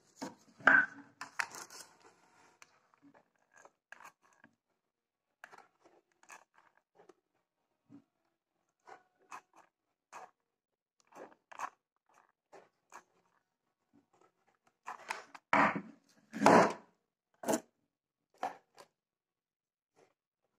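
Cardboard being handled and worked on: scattered light clicks, scrapes and crinkles, with the loudest crunching handling noises near the start and again about fifteen to seventeen seconds in.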